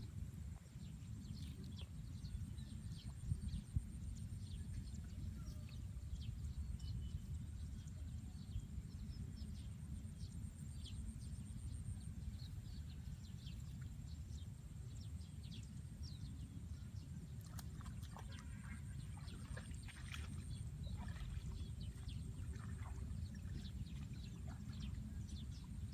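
Rural outdoor ambience: a steady low rumble under many short, scattered animal chirps, with a faint steady high hiss.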